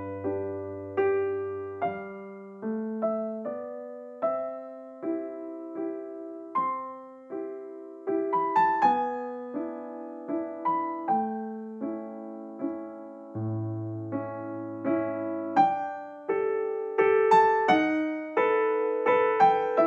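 Background music: a slow piano tune, each note struck and fading, over changing chords.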